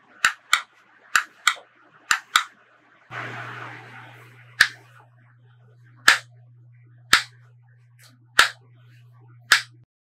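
Hard plastic clicks from the handle switches of a KNB ER-10 handheld megaphone. The press-to-talk trigger is clicked in quick press-and-release pairs, then single clicks follow about once a second. A low steady electrical hum comes in about three seconds in and stops just before the end.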